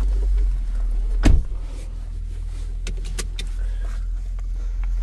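Ford F-150 pickup's engine idling, heard from inside the cab as a steady low drone. There is a single loud thump about a second in and a few light clicks.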